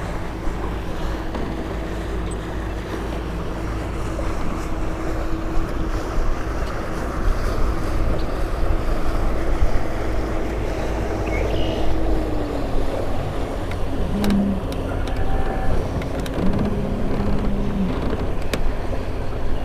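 Wind rushing over the microphone beside the river, with a motorboat's engine running steadily in the background; the engine's pitch drops slightly about two-thirds of the way through as the boat passes. A few faint clicks come near the end.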